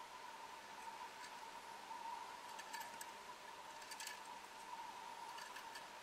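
Faint steady hiss with a constant high-pitched tone and scattered soft clicks, a small cluster of them about two and a half seconds in and another near four seconds.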